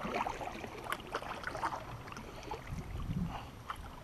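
Kayak paddle strokes in slow river water: the blade dipping and splashing, with irregular small drips and ticks.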